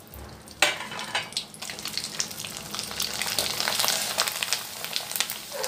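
Sun-dried rice-flour murukku deep-frying in hot oil in a kadai, puffing up: a dense crackling sizzle with sharp pops that starts suddenly about half a second in and grows louder.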